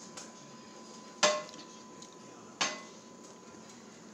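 Two sharp clinks of kitchenware about a second and a half apart, each ringing briefly.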